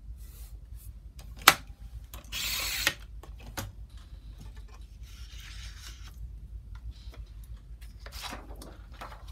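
Handling sounds of paper-bead crafting: a sharp click about a second and a half in, then a short scratchy rub of paper, and a softer rub around the middle, over a low steady hum.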